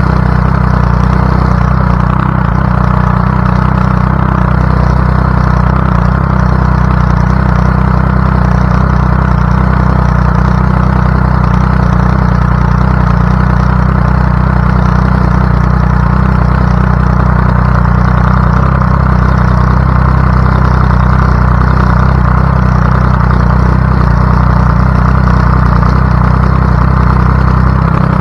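Triumph Daytona 675 sportbike's three-cylinder engine running on track, heard from a camera mounted on the bike. The sound is loud and steady, with little change in pitch.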